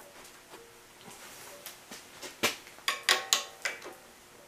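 A steel wrench clinking against the bead roller's pressure-adjusting bolt and frame as the roller pressure is tightened. About six sharp, ringing metal clinks come quickly in the second half.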